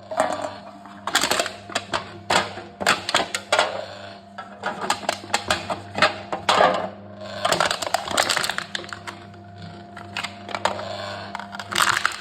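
Aluminium cans being crushed in a machine: irregular clusters of crunching, crackling metal, over a steady low hum.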